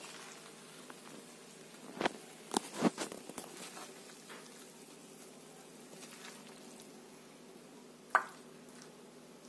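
Steel spoon scooping thick curry out of a steel pan into a ceramic serving bowl: a few short scrapes and clinks, bunched about two to three seconds in and once more near the end, over a faint steady hum.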